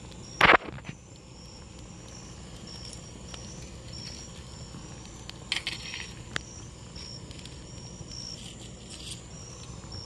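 A wire grilling basket gives one loud clank about half a second in as the hot dogs in it are flipped over a campfire, followed by a few softer clicks and rattles around the middle. Insects keep up a steady, evenly pulsed chirping behind it.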